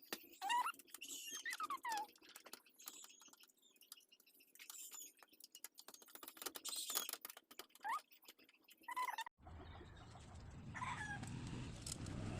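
Irregular small clicks and taps from handling the parts of a portable butane stove, mixed with short bird-like chirps. About nine seconds in, the sound cuts abruptly to a steady low rumble, with one more chirp over it.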